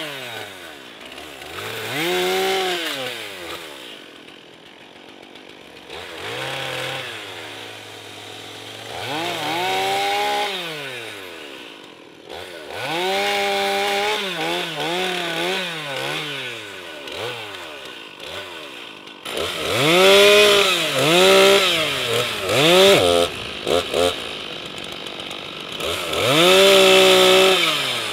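Two-stroke chainsaw revved again and again in bursts of a second or two as it cuts limbs, its pitch climbing to full throttle, holding, then dropping back to a low idle between cuts.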